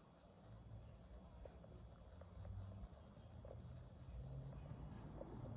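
Faint night ambience: a cricket chirping steadily, about two to three chirps a second, over a low rumble.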